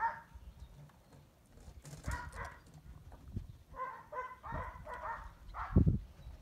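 Dog whining in short high-pitched calls, in two bursts about two seconds in and from about four to five seconds. Dull knocks in between, the loudest near the end, from the dog nosing the plastic treat-dispensing tube on the dirt.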